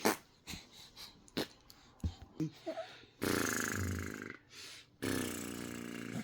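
Baby making two drawn-out, throaty vocal sounds, each just over a second long, after a few soft taps.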